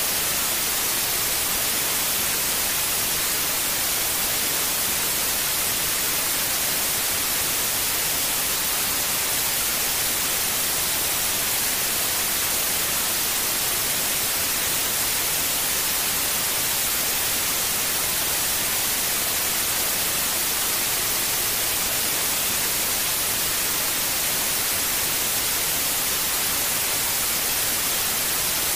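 Steady white noise: an even, bright hiss that does not change.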